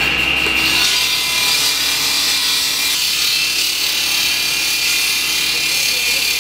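Power saw running under load: a steady high-pitched whine with a harsh hiss.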